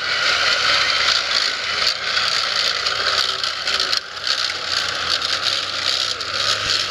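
Light tracked armoured vehicle driving across grass, its engine running and its tracks rattling, as a steady, fairly loud noise.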